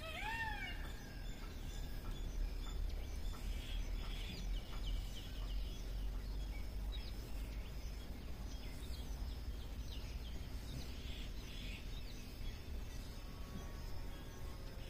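Outdoor background with a steady low rumble and scattered short, high bird chirps. One rising-and-falling call sounds right at the start.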